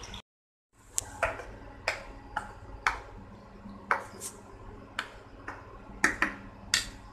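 Sound cuts out for about half a second near the start, then a run of short, sharp clicks follows, unevenly spaced at roughly two a second.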